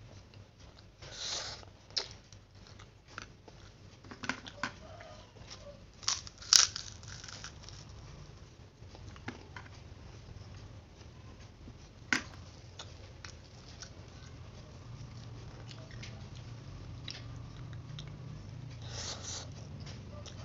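A person eating instant fried noodles with a spoon and fork: chewing, a few short slurps, and many sharp clicks of the cutlery against the plate. A low hum grows louder in the second half.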